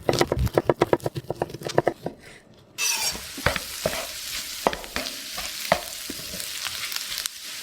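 Fast, even tapping for about two seconds, then after a brief pause a sudden sizzle as food hits a hot pan of frying rice. The sizzle carries on steadily with a few sharp knocks of a utensil against the pan.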